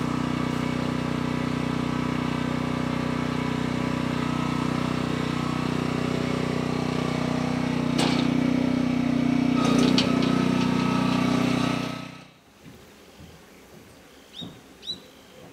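A small engine running steadily at an even speed, with a couple of clicks about eight and ten seconds in. It cuts off suddenly about twelve seconds in, leaving a few faint bird chirps.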